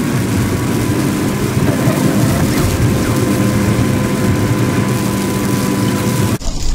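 Steady road and engine noise of a car driving on a highway at night, heard from inside the cabin. It cuts off abruptly about six seconds in.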